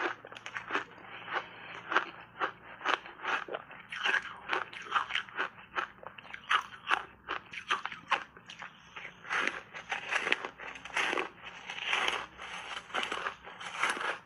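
Refrozen ice bars heavily coated in matcha powder being bitten and chewed: a dense run of sharp, crisp crunches, several a second.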